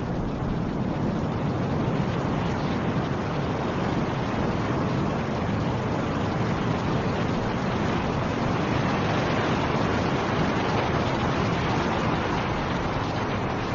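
Snowstorm wind blowing: a steady, even rush that swells a little around the middle.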